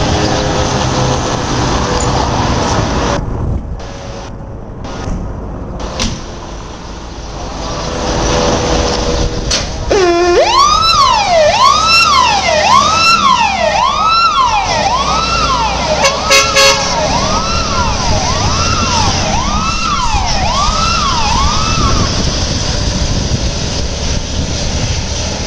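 Škoda 706 RTHP fire engine's diesel engine running as the truck drives off. About ten seconds in its siren starts, rising sharply, then sweeps up and down about once a second for some twelve seconds before it stops, with the engine still running underneath.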